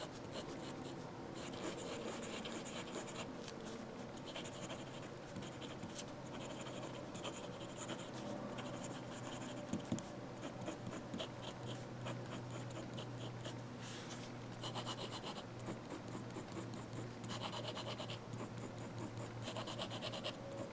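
Medium steel fountain pen nib scratching across notebook paper in quick runs of short strokes, hatching and writing, with brief pauses between runs. A nib with a little feedback: not the smoothest, not the scratchiest. A steady low hum sits underneath.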